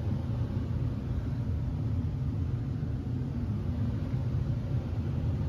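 A steady low rumble with no clear rhythm or separate events.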